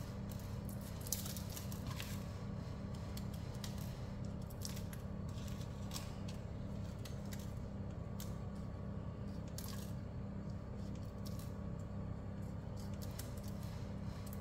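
Kitchen scissors snipping dried red chillies into a bowl: irregular crisp snips, several a second at times, over a steady low hum.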